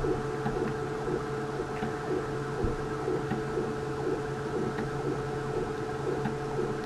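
A 3D printer running, its stepper motors humming in a steady set of tones, with a few faint clicks of plastic parts being handled.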